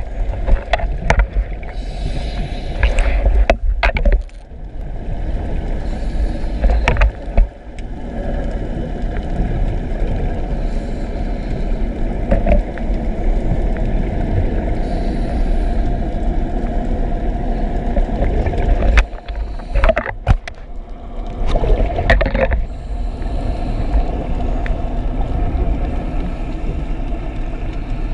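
Muffled underwater rumble and water noise picked up by a submerged camera, with a few short bursts of knocking and rushing noise.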